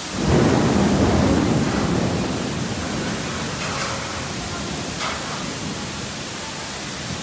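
Heavy rain hissing steadily, with a peal of thunder that breaks in suddenly just after the start and rumbles away over the next few seconds.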